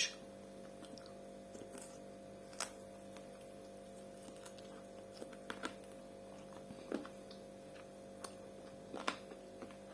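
Quiet room tone with a steady low hum and a scattering of small clicks and ticks, a few of them a little louder.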